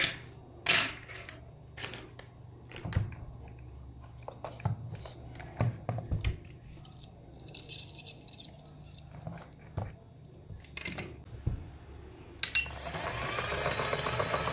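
Scattered clicks and knocks of small parts being handled, then near the end a small electric motor starts with a whine that rises in pitch as it spins up.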